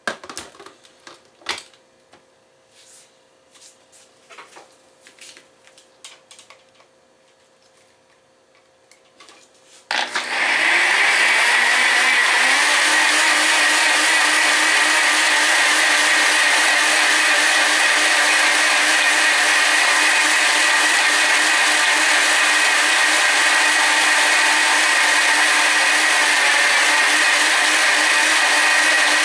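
A few clicks and knocks as the cup is fitted onto a NutriBullet blender base. About ten seconds in, the NutriBullet's motor starts suddenly and runs with a loud, steady whine, blending hydrated unflavoured gelatin smooth.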